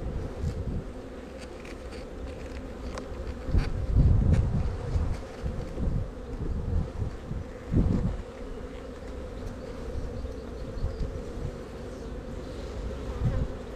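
Honeybees buzzing steadily from an opened hive, with scattered clicks and low thuds, the loudest about four and eight seconds in.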